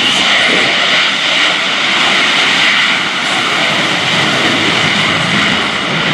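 F-35C Lightning II's single Pratt & Whitney F135 jet engine at full power with afterburner lit, as the jet climbs away from a touch-and-go landing. It makes a loud, steady rushing noise.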